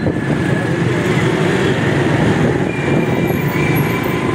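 Steady background road traffic noise: a continuous noisy din with no single event standing out.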